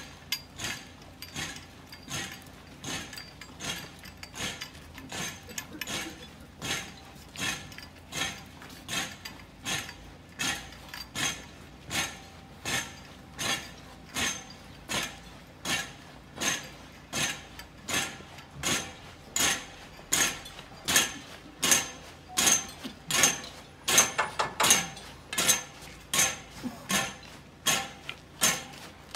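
Sharp metallic clinks in a steady walking rhythm, about three every two seconds, each ringing briefly. They grow louder over the last third, with a quick double strike now and then.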